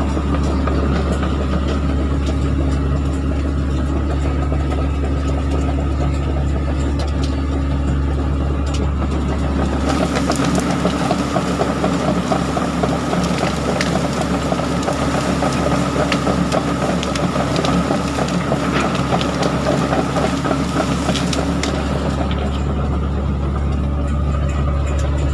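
Excavator's diesel engine running steadily. About ten seconds in it turns harsher and busier for roughly twelve seconds, with scattered knocks and cracks, then settles back to its steady note.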